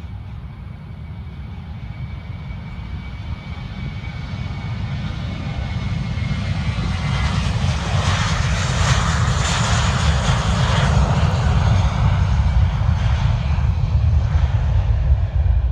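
A Spirit Airlines Airbus A320-family airliner's twin jet engines at takeoff thrust as it rolls down the runway and lifts off. The roar grows steadily louder, peaks about halfway through as the jet passes, and leaves a deep rumble building toward the end.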